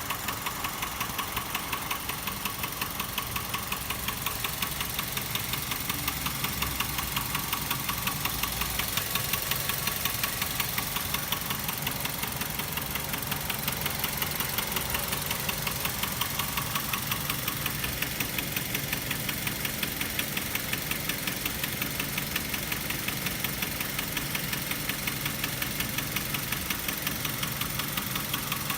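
Mazda 6 GH 1.8 four-cylinder petrol engine running steadily with a fast, even rhythmic clatter. The clatter comes from a worn timing chain, chain guides and hydraulic tensioner, and replacing them cured it.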